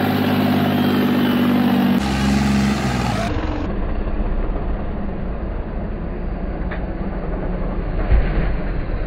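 Stunt tractors' diesel engines running hard during wheelies: a steady high-revving drone for the first two seconds, then, after abrupt cuts, a lower, rougher engine sound with a thump about eight seconds in.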